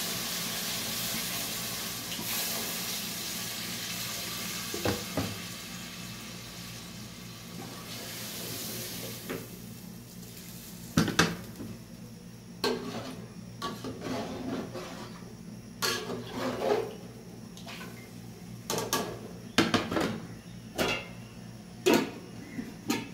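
Water poured into a hot steel pot of frying chicken and masala, hissing and sizzling, the hiss dying away over the first ten seconds. Then a wooden spoon stirs and knocks against the steel pot in a string of sharp, irregular knocks and clinks, with the steel lid set on the pot near the end.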